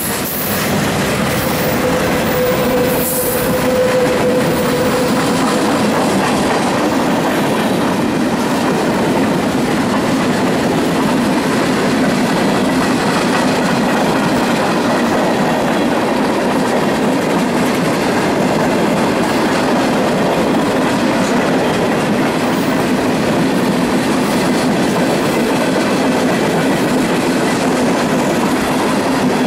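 Freight train rolling past: a steady, loud noise of its wheels on the rails.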